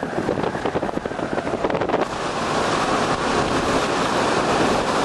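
Strong wind from Hurricane Katrina buffeting the microphone over wind-whipped storm-surge water. Gusty and choppy at first, then about two seconds in it settles into a steadier rush.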